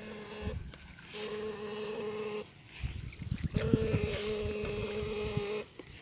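Homemade 'platina' electric fish shocker run off two car batteries, buzzing with a steady hum that cuts in and out in bursts of one to two seconds as it is switched on and off. Water sloshes and thuds around the probe about three seconds in.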